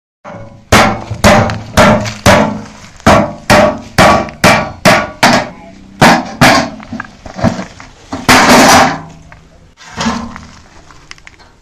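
A machete chopping into the thin sheet-metal top of a large square oil tin, a dozen or so sharp metallic strikes about two a second as the lid is cut open. Just after eight seconds comes one longer grating sound, and near ten seconds a last strike.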